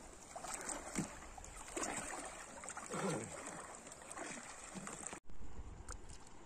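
Feet wading through shallow water over sand, irregular sloshing and splashing with each step. It cuts off abruptly about five seconds in, leaving quieter, steadier water noise.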